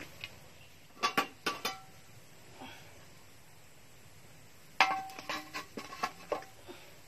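Metal basin and pot lid clanking against each other and the tray as they are handled and set down: a few sharp, briefly ringing clanks about a second in, then a quick run of clinks near the end.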